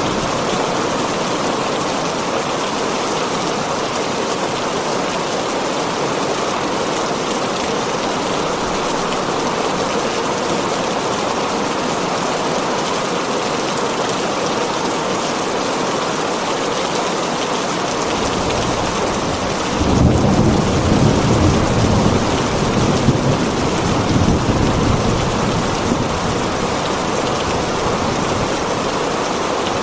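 Heavy rain falling steadily on a tin roof, with a low rumble of thunder rolling in about two-thirds of the way through and fading after several seconds.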